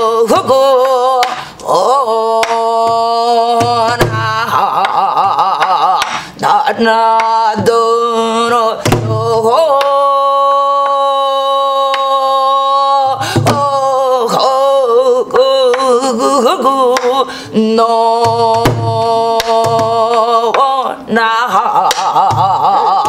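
A woman singing Korean gueum solo, a wordless melody on vocables like "nadinuna", in long wavering, bending notes with one long held note about halfway through. She accompanies herself on a buk barrel drum, with low palm thumps and sharp stick strikes keeping the rhythm. She is demonstrating the shaded, melancholy gyemyeon colour that the student's rendition lacked.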